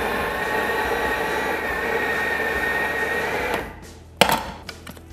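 Vorwerk Thermomix food processor grinding flour, meadow herbs and salt at high speed: a steady whirring with a high whine, which stops about three and a half seconds in. A few sharp knocks follow.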